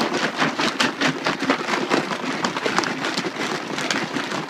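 Plastic pitcher of water and degreaser being shaken hard, the water sloshing and the small plastic toy-figure parts inside rattling against the pitcher in a fast, continuous run of clicks and splashes. This is the figure pieces being degreased in the cleaning bath.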